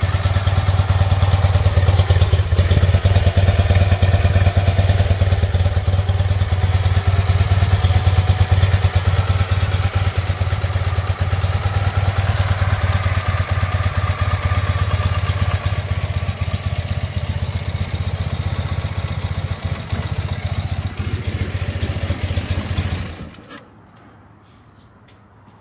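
BMW R100/7's air-cooled flat-twin boxer engine running steadily through its chrome exhaust, then shutting off suddenly about 23 seconds in. A few faint clicks follow.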